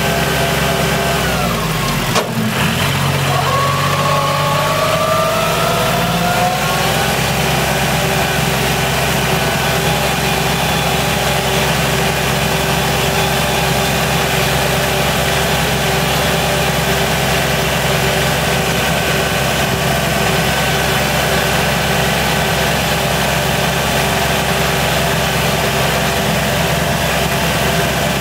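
Tractor engine running steadily while plowing snow. About a second and a half in the revs drop, with a short click, then climb back up over the next few seconds and hold steady.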